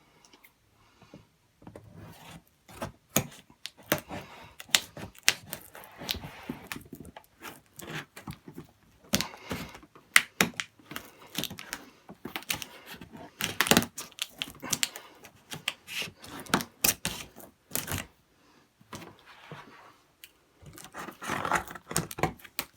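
A cardboard toy box being opened by hand: an irregular run of clicks, taps and tearing as its flaps, tape and packaging are pulled loose.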